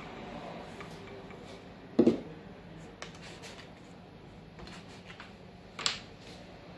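Kitchen handling sounds: a dull knock about two seconds in as the wooden rolling pin is set down on the pastry board, light ticks and rubbing as a plastic cutter is pressed into the dough, then a sharp plastic click near the end as the cutter is put down on the board.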